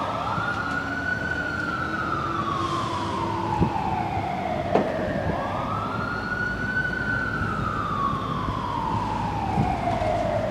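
Emergency vehicle siren in a slow wail: each cycle climbs quickly, then slides down slowly over several seconds, twice through. Two short knocks come about a second apart midway.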